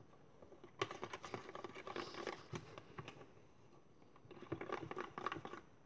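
Glue and red gouache paint being stirred in a plastic tub: quick, faint scraping and tapping of the stirrer against the container, in two spells with a short pause in the middle.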